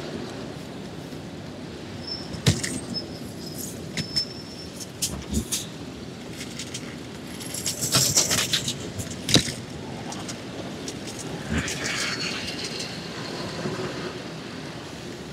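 Bicycle riding over brick paving: a steady rush of wind and city traffic, with sharp knocks and rattles from the bike as it goes over the pavers, and a brief louder hiss about eight seconds in.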